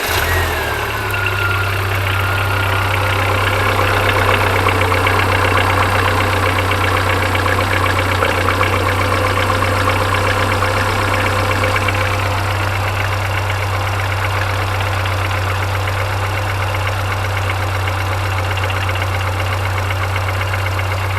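Car engine just started and idling, with a fast, even ticking of hydraulic valve lifters that have not yet filled with oil after a camshaft and lifter replacement. A short falling whine sounds in the first second or so.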